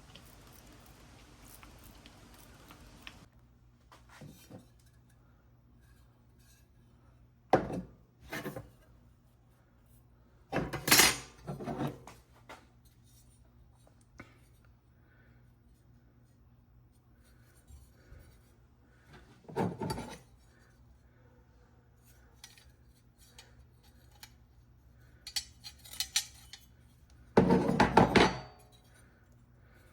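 A handful of short metallic clinks and clatters, like small metal parts and tools being picked up and set down. A steady hiss cuts off about three seconds in.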